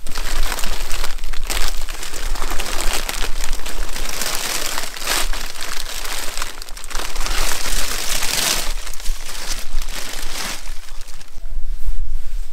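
Frost-covered plastic sheet crinkling and rustling as it is pulled off and bundled up from a motorcycle, in bursts with short pauses, dying down about ten seconds in.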